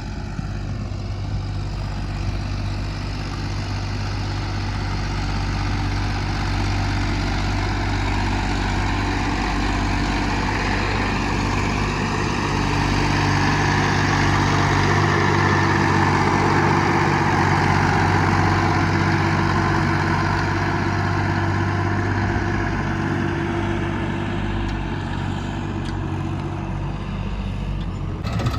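Heavy diesel engine running steadily, its sound swelling in the middle for several seconds before easing back.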